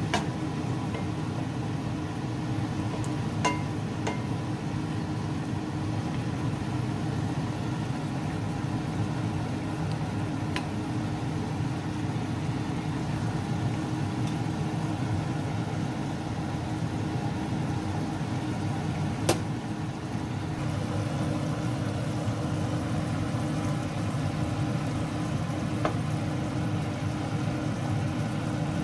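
Beef stew boiling hard in a pan under a steady low hum, with a few light clicks of a wooden spatula against the pan.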